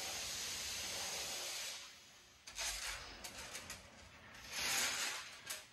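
A steady hiss lasting nearly two seconds, then a few sharp light clicks, and a second, louder burst of hiss about a second before the end.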